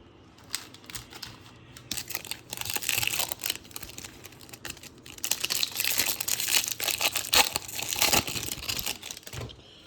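Foil trading-card pack wrapper being torn and crinkled, crackling in two long stretches.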